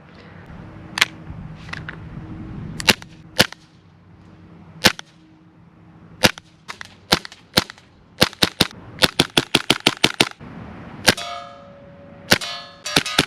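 Tokyo Marui FNX-45 Tactical gas blowback airsoft pistol firing: sharp single shots a second or so apart, then a quick string of about a dozen shots. Near the end, rapid shots come with a ringing metallic clang.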